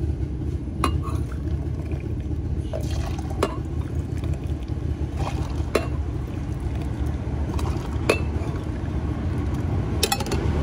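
Hot water poured from a stainless-steel kettle into a cloth brewing filter over a stainless pot, with a few light metal clinks as the kettle and pot are handled, over a steady low background rumble.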